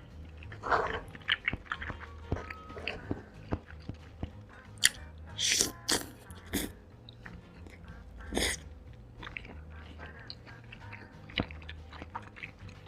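Close-miked eating: a person biting and chewing food, with irregular wet smacks and clicks, a few louder bites about five and a half and eight and a half seconds in.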